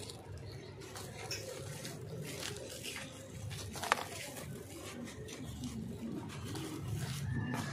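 Hands crumbling a dry sand-cement chunk over a plastic tub, with grit and powder pattering down in irregular small crunches. A single sharp snap comes about four seconds in.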